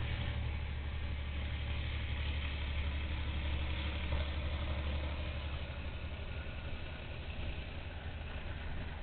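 Diesel or electric freight locomotive running as it pulls slowly out of the yard, heard as a steady low rumble.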